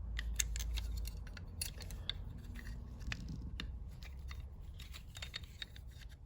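Irregular light metallic clicks and scrapes from the parts of a Jennings J-22 .22 LR pistol being handled and fitted back together by hand, over a low handling rumble.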